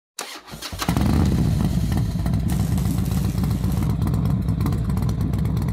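Motorcycle engine running, coming in just after the start and holding at a steady, loud throb.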